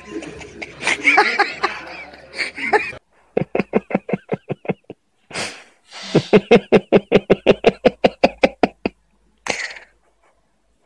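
A voice at first, then two bouts of rapid, pulsing laughter, the second about three seconds long, with short bursts of noise between them.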